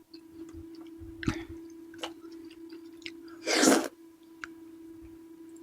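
Close-up mouth sounds of eating eggplant with sambal: soft chewing and wet mouth clicks, with one louder noisy sound of under half a second about three and a half seconds in. A steady hum runs underneath.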